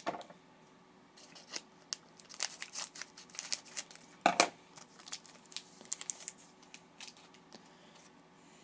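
Trading cards being handled and slid off one another: a run of short, dry scraping flicks and clicks, with a louder one about four seconds in.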